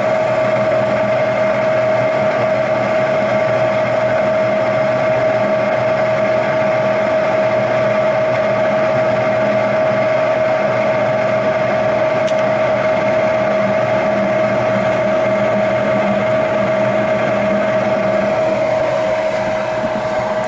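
Lennox G51 furnace's induced draft motor running steadily with one strong constant tone, at the start of a heating cycle.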